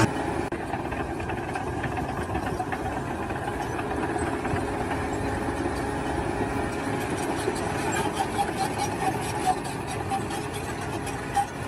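An engine running steadily, with scattered small ticks in the second half.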